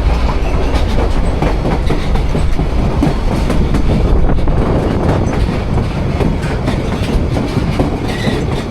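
White Pass & Yukon Route train running along the track: a steady low rumble of the cars with many quick, irregular clicks from the wheels over the rails.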